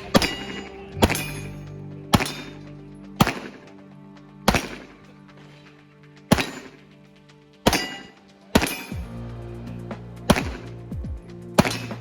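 Pistol shots fired one at a time, about ten of them, at uneven intervals of roughly one to two seconds, over background music.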